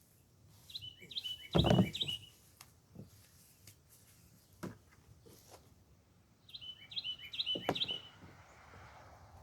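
A songbird singing two short chirping phrases, one about a second in and another around seven seconds, over scattered knocks and rustles from hands working through the potting soil and pot; the loudest is a thump just under two seconds in.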